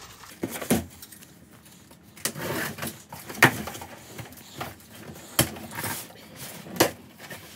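Cardboard shipping box being handled and opened: several sharp knocks and taps against the box, with quieter scraping and rustling as the tape across its top is cut and pulled.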